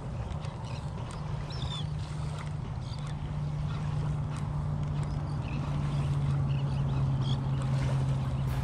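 Steady low drone of a distant motorboat engine, its pitch sinking slightly in the second half, with seabirds calling faintly at intervals over the water.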